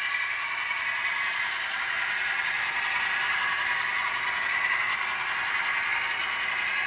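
HO scale model freight cars rolling past on the track: a steady rolling rattle with many small clicks from the wheels running over the rails.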